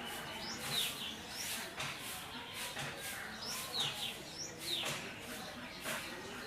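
Bird chirping: short, high chirps, each falling quickly in pitch, repeated about once a second, with brief rustling noises in between.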